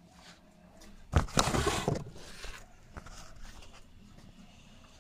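Rustling and scraping of a phone being handled and moved. There is a loud, noisy rustle about a second in, then quieter rustles.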